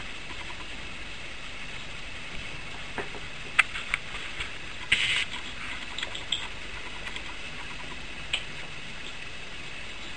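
Small animal noises over a steady background hiss: a few soft clicks and one short scratchy rustle about five seconds in, as a Bengal cat licks a puppy and the two shift on their fabric bed.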